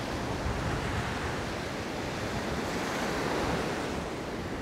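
Rough sea surf washing in steadily, with wind buffeting the microphone.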